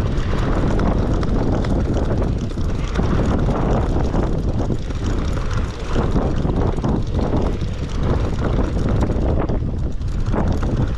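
Steady low drone of the charter fishing boat's engine, with wind buffeting the microphone.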